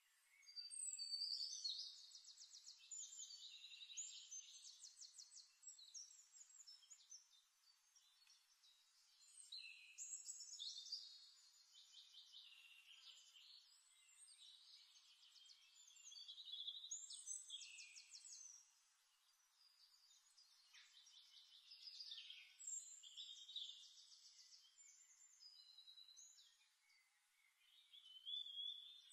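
Faint songbird chorus: repeated bursts of rapid, high trills and chirps, each phrase a few seconds long with short pauses between.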